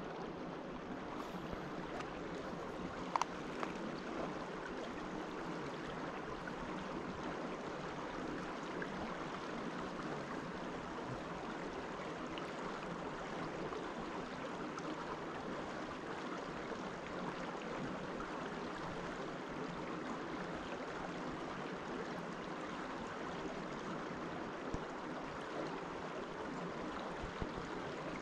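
Brook water running steadily in an even rush, with a single small click about three seconds in.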